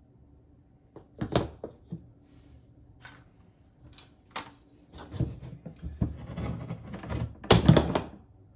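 Knocks and clatter of carving tools and a wooden spoon blank being set down and picked up on a plastic folding table. A few separate knocks come first, then a busier stretch of handling, loudest just before the end.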